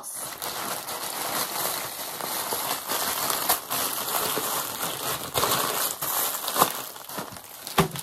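Plastic packaging, a poly mailer bag and a clear plastic bag, crinkling as it is handled and opened, with sharper crackles every so often.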